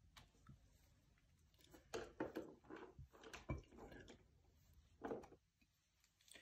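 Soft clatter from handling painting tools at the palette: a run of light taps and knocks in the middle, then one more about five seconds in.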